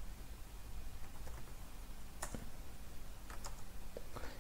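A few scattered keystrokes on a computer keyboard, sharp isolated clicks with pauses between them, over a faint steady low hum.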